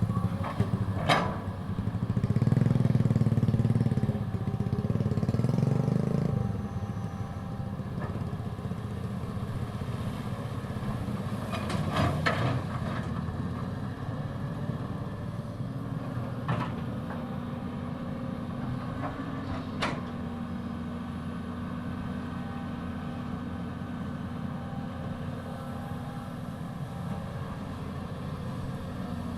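Caterpillar 320D excavator's diesel engine running steadily, louder under load for a few seconds about two seconds in, with a few sharp knocks at intervals.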